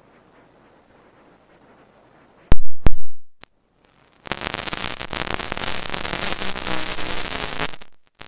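Two drag cars launching, heard through a badly connected external microphone: two loud sharp pops a little over two seconds in, then about four seconds of harsh crackling static in place of clean engine sound, which cuts off near the end.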